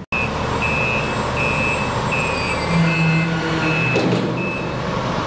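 Heavy-haul truck's reversing alarm beeping, a high beep about every three-quarters of a second, over the truck's engine running; the beeps stop a little before the end, with a short knock about four seconds in.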